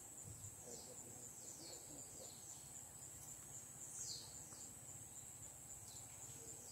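Faint outdoor ambience: a steady high-pitched insect drone, with a bird's short calls sliding downward in pitch every second or two, the loudest about four seconds in.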